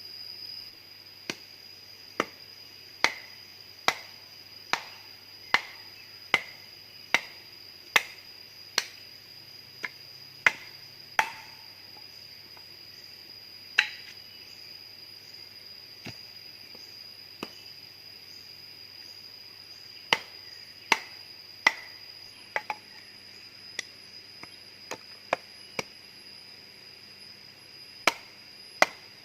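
Repeated chopping strokes, sharp single blows about one a second, stopping around the middle and then coming again in scattered groups. A steady high insect drone runs underneath.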